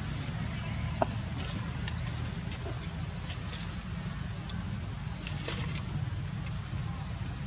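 Steady low outdoor rumble with scattered short, high chirps and ticks, and one sharp click about a second in.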